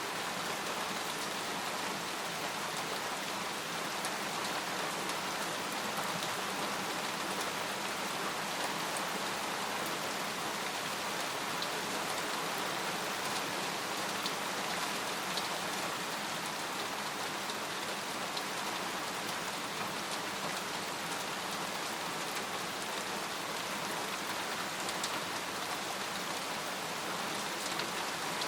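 Steady rain falling on a tent: an even hiss with scattered sharper drop ticks.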